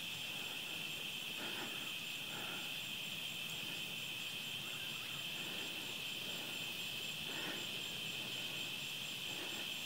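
A steady, high-pitched chorus of night-calling insects such as crickets, trilling without a break.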